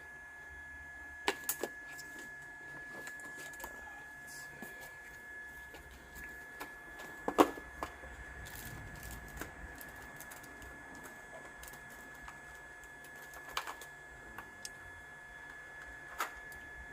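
Hot air rework gun running and warming up with a steady high whine, while small plastic items clack and knock as a tool kit is rummaged through; the loudest knock comes about seven seconds in.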